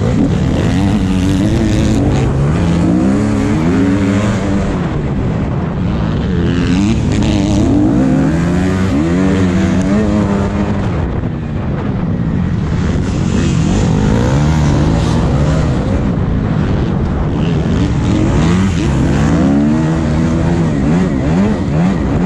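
Motocross bike engine revving hard and easing off over and over as it is ridden round the track, its pitch climbing and falling every second or two as the throttle is opened and shut, with a short dip in loudness about eleven seconds in.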